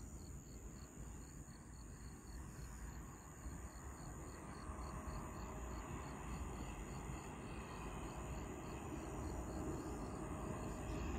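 An insect chirping in a steady high-pitched rhythm, about three chirps a second, over the low rumble of a distant electric-locomotive-hauled container train that grows slowly louder as it approaches.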